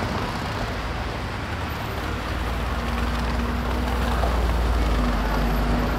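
SOR city buses driving off, a low engine rumble that swells as a decorated articulated bus passes close by, loudest about four to six seconds in, with a steady hum under it.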